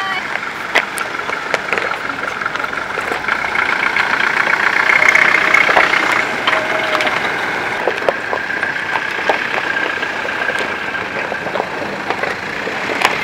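An SUV and then Force Traveller vans drive slowly past over a stony dirt track, engines running at low speed, with scattered clicks that fit stones under the tyres. The sound is loudest about five to six seconds in, as a van passes close.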